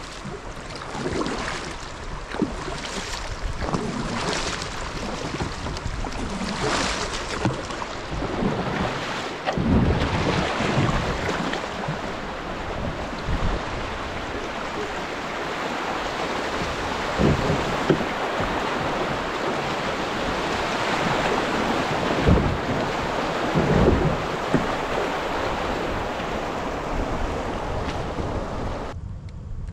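Rushing water of a shallow rocky river rapid around a kayak, with paddle strokes splashing and wind buffeting the microphone. The rush cuts off abruptly near the end.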